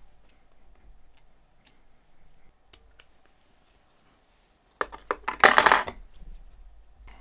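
Small metal spinner parts and hand tools clicking and clinking on a workbench: a few light ticks, then about five seconds in a brief burst of rapid clinking and rattling.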